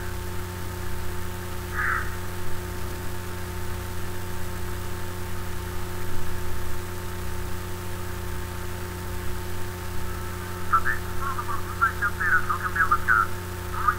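A steady low electrical hum with hiss. Near the end a voice speaks faintly over it, a news announcement.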